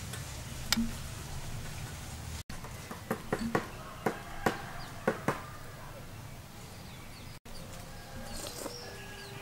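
A metal spoon clicking and scraping against a ceramic bowl several times in quick succession while someone eats a spoonful of dessert.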